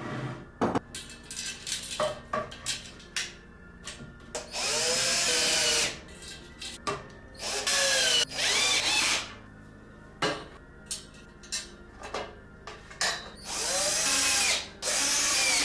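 Power drill-driver driving screws through black metal rods into a bamboo shelf board, in three runs of a second or two each, its pitch rising and falling as the motor speeds up and slows. Sharp clicks and knocks of handling the metal rods and screws come in between.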